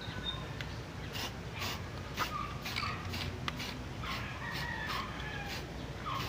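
Aerosol spray-paint can being shaken, its mixing ball clacking inside about twice a second.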